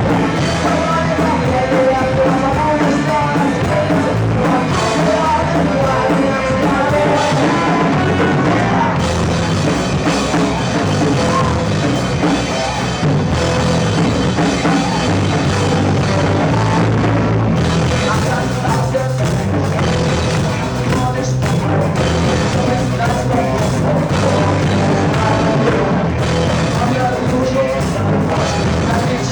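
A rock band playing live with a drum kit, loud and steady.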